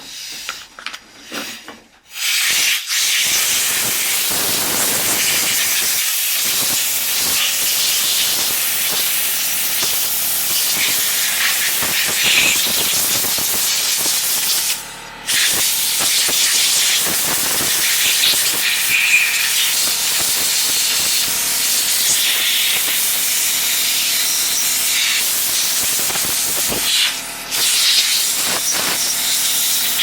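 Compressed air hissing from an air-compressor blow nozzle, blasting sawdust and bar oil off a chainsaw's bar and body. It starts about two and a half seconds in and stops briefly twice, once midway and once near the end.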